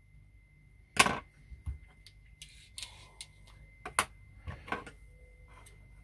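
A few sharp clicks and light taps, the loudest about a second in and another near four seconds: scissors snipping the braided hooklength and small tackle items being handled and set down on a wooden bench.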